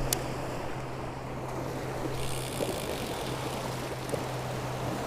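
Wind and waves on a lakeshore as a steady rushing noise, the hiss growing stronger about two seconds in, with a steady low hum underneath and a single sharp click just after the start.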